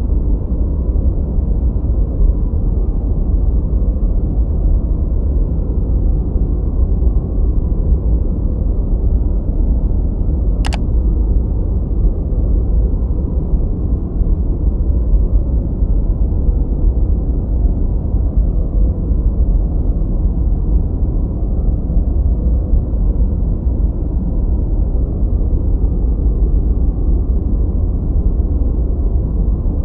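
Steady generated 'gentle' white noise, filtered deep and soft: an even, low rumbling hiss with little treble. A single tiny click about ten and a half seconds in.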